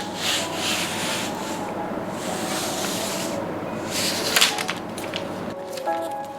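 Rubbing and scraping of objects being handled, in several strokes about a second long each, with a sharp click about four and a half seconds in.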